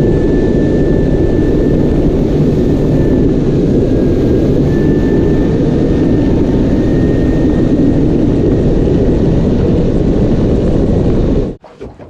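Outboard motor running steadily as a small aluminium boat travels, with a constant rushing noise over it. It stops abruptly near the end.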